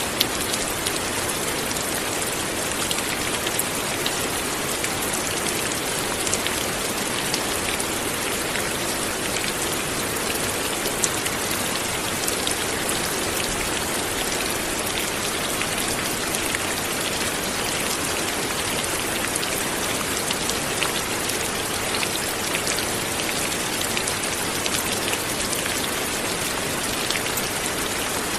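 Steady light rain, its drops pattering on a surface in many small ticks over an even hiss.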